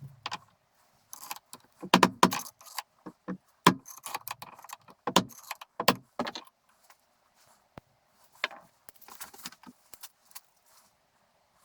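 Loose metal parts and tools clinking and clattering with irregular sharp knocks, as the drill press is taken apart; the clatter is busiest in the first half and comes again near the end.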